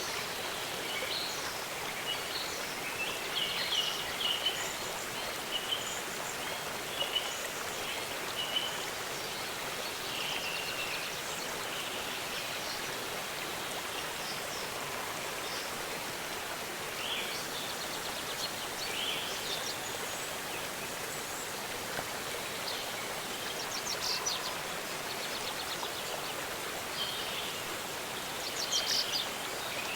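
Waterfall water rushing steadily, with small birds chirping on and off over it in short bursts of calls.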